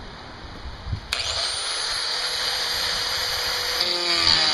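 Small angle grinder with a thin cutoff wheel switched on about a second in, its whine rising as the motor spins up to speed. Near the end the wheel starts cutting into the steel of an old circular saw blade, and the pitch falls as it takes the load.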